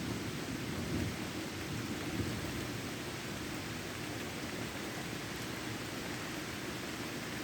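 Heavy rain falling steadily, with a low rumble of thunder dying away in the first second or two.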